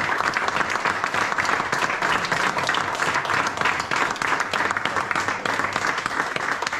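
An audience clapping steadily: many hands applauding at once in a dense, even clatter.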